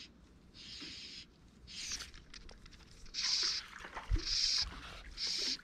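Fly line being stripped in by hand through the rod guides: a series of short hissing pulls, about one a second, louder in the second half. A dull thump about four seconds in.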